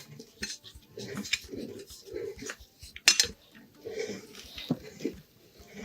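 Meat grinder working a bar of soap: irregular metallic clicks and clinks mixed with squelching as the soap is forced through, with one loud sharp click about three seconds in.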